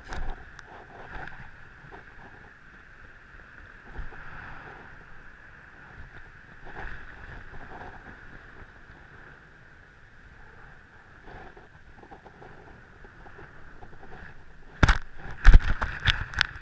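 Scuffing and light knocks of a belly-mounted camera rubbing against clothing over a steady hiss, then a run of loud sharp knocks near the end as the camera is bumped.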